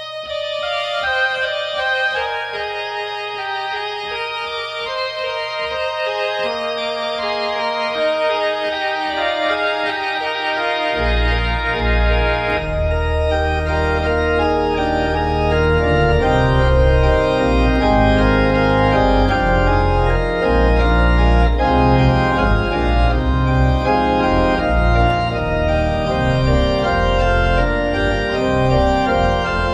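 Two-manual digital church organ playing the postlude in sustained, full chords. Deep bass notes come in about a third of the way through, and the music grows gradually louder.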